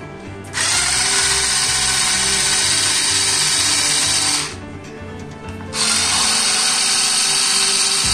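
Small handheld electric screwdriver running in two bursts of about four seconds each, a steady high whir, as it drives the screws holding an induction cooktop's coil assembly. Background music plays underneath.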